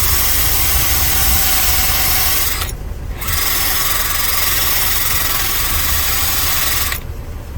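A handheld power tool runs in two long bursts with a brief stop about three seconds in.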